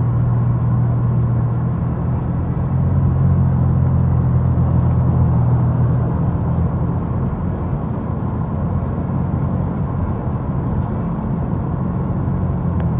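Car driving at steady speed, heard from inside the cabin: a constant low engine hum under road and tyre noise.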